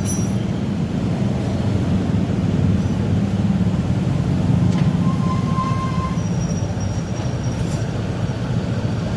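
Honda ADV 150 scooter's single-cylinder liquid-cooled engine idling steadily, hot after running for over an hour. A brief faint high tone sounds about five seconds in.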